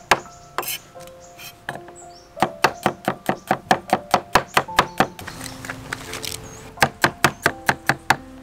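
Cleaver chopping garlic cloves on a wooden chopping board: quick runs of knocks, about five a second, with a pause near the middle.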